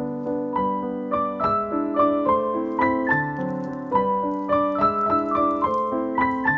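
Background piano music: a melody of quick single notes over a lower accompaniment.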